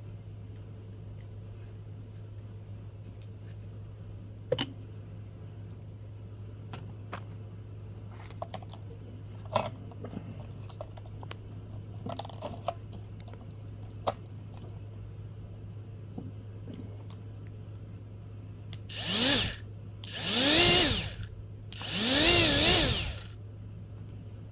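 A few light clicks and knocks of handling, then a Ridgid 18-volt cordless grinder's motor run in three short bursts, each spinning up and winding back down: the reassembled tool's test run after a bearing replacement.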